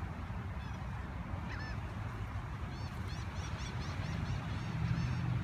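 A flock of birds calling with short, repeated calls: a few scattered ones at first, then a quick run of them about three seconds in, over a steady low rumble.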